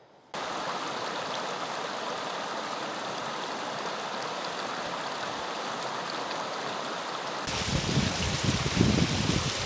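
Creek water rushing in a steady wash. About seven and a half seconds in it turns louder and brighter, with irregular low rumbling on top.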